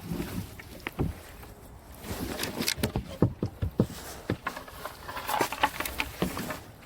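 Kayak and paddle knocking and scraping through twigs and branches in shallow water: a busy run of irregular cracks, knocks and rustling, thickest in the middle.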